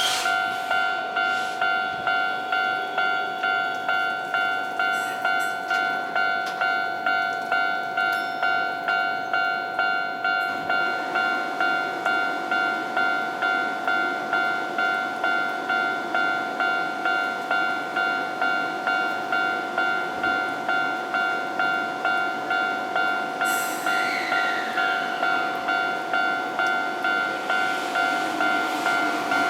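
Japanese railway level-crossing warning bell ringing its repeated electronic 'kan-kan' tone, about two strokes a second, signalling that a train is coming. Near the end a rising rush of noise builds as the train approaches.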